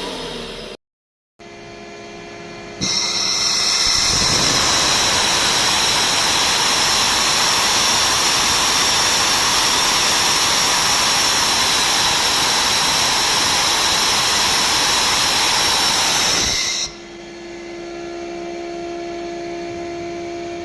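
Nissan Navara 2.5 turbocharger: a loud, steady rush of air with a high whistle, lasting about fourteen seconds and cutting off abruptly. A quieter steady hum follows.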